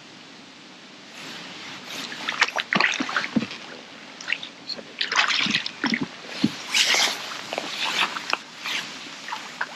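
A hooked fish splashing at the water's surface as it is drawn over a landing net, with irregular splashes and slaps starting about a second in.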